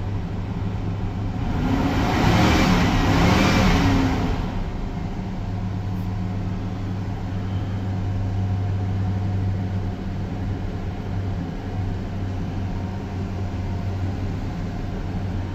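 Toyota Century's 5V-EU 4.0-litre V8 at cold-start fast idle, heard from inside the cabin, running smoothly and steadily around 1,500 rpm while the idle slowly settles toward its warm speed. A louder rush of noise swells and fades between about two and four seconds in.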